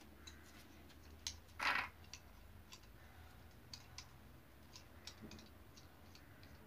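Faint, irregular light clicks and taps from small hard things handled in the hands, with one short, louder rustle-like burst about one and a half seconds in.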